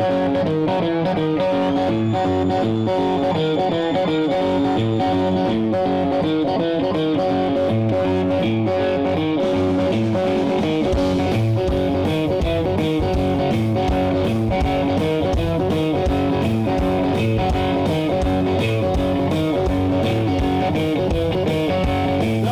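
Blues-rock band playing an instrumental intro, led by an electric guitar repeating a boogie riff. A steady low beat joins about halfway through.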